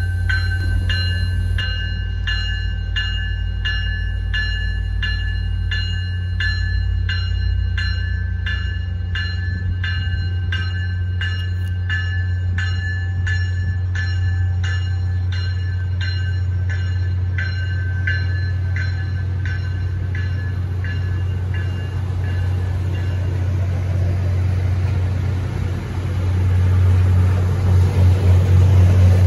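Commuter train's diesel locomotive running with a steady low drone while its bell rings steadily, a little under two strokes a second, then fades out about three-quarters of the way through. Near the end the engine grows louder.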